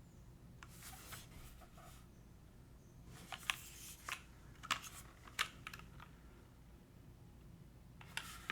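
Typing on a Plywrks Spyder mechanical keyboard with vintage Cherry MX Black linear switches in a full carbon fiber plate, top-mounted, with GMK keycaps: short runs of key clacks separated by pauses, with a last burst near the end.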